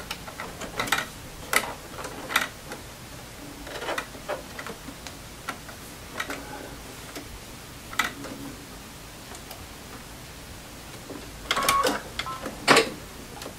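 Sewing machine and fabric handling during chain piecing: scattered, irregular clicks and taps, with a short busier burst of machine noise near the end.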